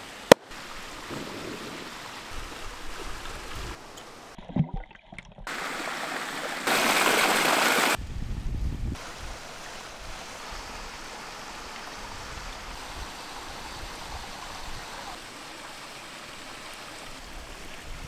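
Mountain stream rushing over rocks, a steady noise of running water. One sharp axe strike sounds just after the start, and the rushing grows louder for about a second around seven seconds in.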